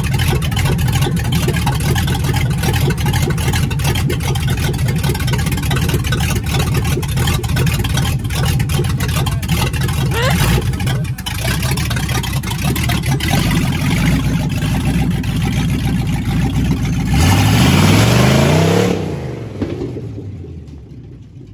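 Lifted 1971 Chevrolet K5 Blazer driving, its engine running steadily under a constant bed of driving noise. About seventeen seconds in, the engine revs up and back down as the truck pulls away, then fades out near the end.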